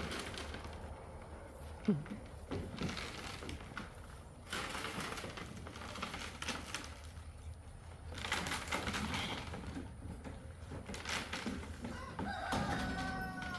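Chickens clucking and calling among bursts of rustling noise, with a longer rising call near the end.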